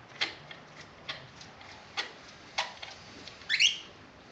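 A spark plug being turned into its hole by hand with a rubber hose pushed over it: a few sharp clicks, about one a second, then a short rubbery squeak near the end as the plug seats hand-tight.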